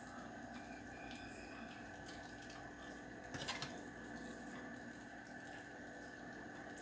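Faint room tone with a steady hum, and one short knock about halfway through.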